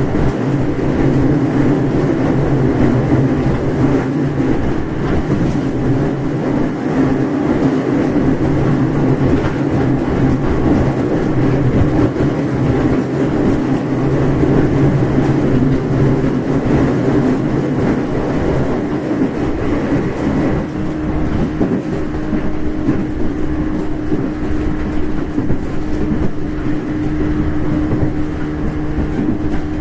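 Interior running sound of a 415 series 1500-subseries electric multiple unit in motion: steady rumble of wheels on rail and the running gear. A steady hum comes in about two-thirds of the way through.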